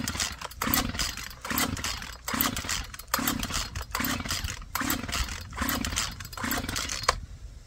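Poulan two-stroke chainsaw being pull-started over and over, about nine rapid pulls of the recoil starter cord at a little under one a second. Each pull drags the engine through its compression, but it never catches: the saw will not start after its intake gasket and fuel line work.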